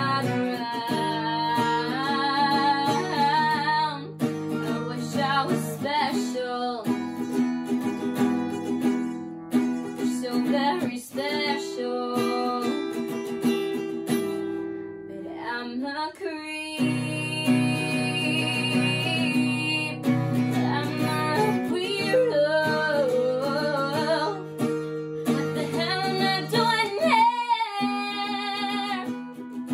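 A young woman sings a song while strumming chords on an acoustic guitar. The strumming breaks off for a moment a little past halfway, then resumes.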